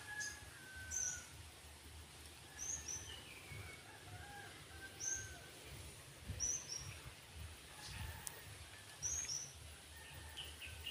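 Wild birds calling outdoors: a short, high, falling chirp, often doubled, repeated every second or two, with softer lower whistled notes between. Low thumps run underneath.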